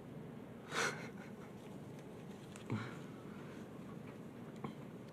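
Mostly quiet: a short sharp breath through the nose about a second in, a brief low murmur of the voice near the middle, and a light click near the end, over faint handling of chrome trading cards.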